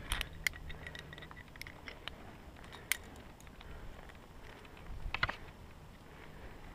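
Scattered light clicks and scrapes over a faint steady hiss: a cluster near the start, a sharper click about three seconds in, and another cluster about five seconds in.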